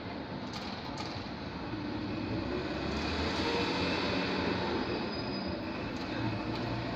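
Steady city traffic noise from cars driving through an intersection below, a continuous rumble that grows somewhat louder a couple of seconds in.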